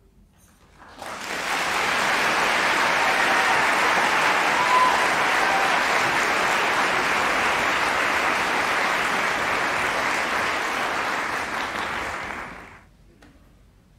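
Audience applauding in a concert hall. The clapping swells about a second in, holds steady, and dies away fairly quickly near the end.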